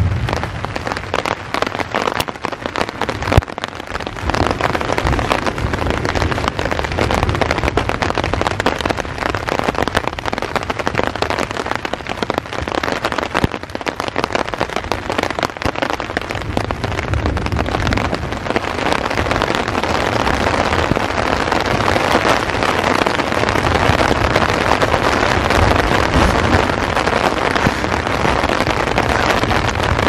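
Heavy rain falling in a thunderstorm, a dense patter of drop impacts that gets heavier about two-thirds of the way through. Low rumbles of thunder come and go beneath it.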